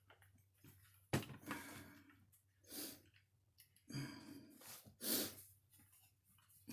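A sharp click about a second in, then several short, soft rustling swishes of a rag or paper towel wiping white lithium grease off an RC car's shock shaft.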